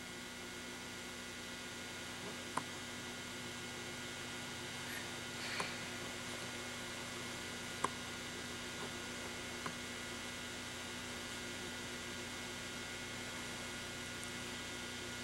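Steady electrical mains hum and hiss of an old home-video recording, with a few faint short clicks scattered through it.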